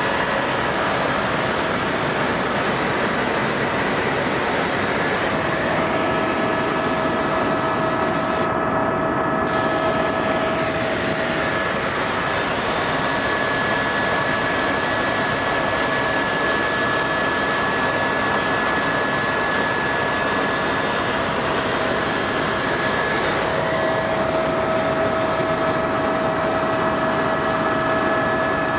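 Helicopter cabin noise in steady flight: a constant rushing drone, with a few steady whining tones that fade in and out.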